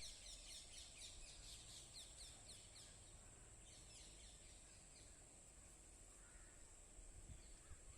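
A bird chirping faintly in a quick series of short notes that each slide down in pitch, about four or five a second for the first three seconds, with a few more about four seconds in. A steady high hiss runs underneath, and a few low thumps come near the end.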